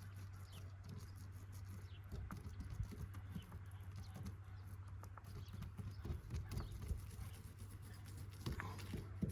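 Irregular light knocks and taps of someone moving and working on a tiled roof, over a steady low hum, with a louder knock near the end.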